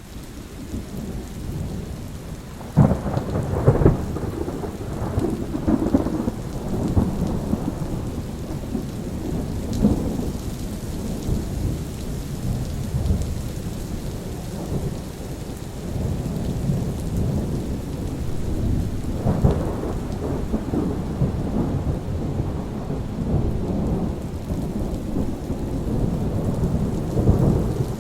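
Steady rain with thunder rolling over it in long low rumbles, with sharper peals about three seconds in, around twenty seconds in, and near the end.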